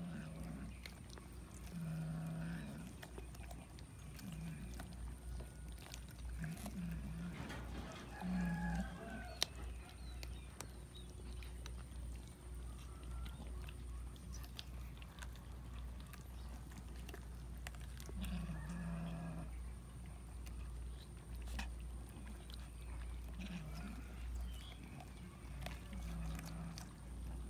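Cats feeding in a crowd on a cooked chicken, giving short low growls over the food every few seconds. Most come in the first third and again in the last third, over small wet clicks of chewing and tearing.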